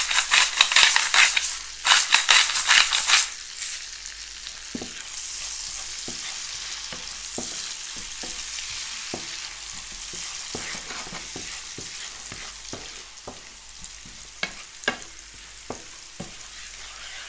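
A salt grinder is cranked over the pan for about three seconds, a rapid crunching rattle. Then chopped garlic fries in oil and butter, a steady sizzle, with a wooden spatula knocking and scraping in the pan as the garlic browns.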